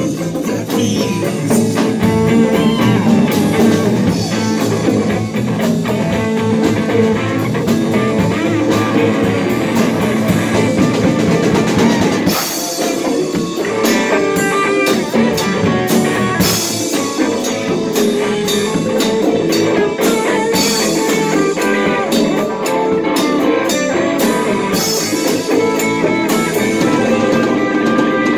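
Live band playing an instrumental rock jam: electric guitars over bass, a drum kit and hand-played congas.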